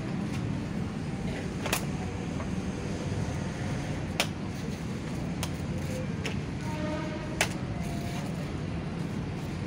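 Steady low rumble of street traffic, with three sharp clicks or knocks spaced about two and a half seconds apart.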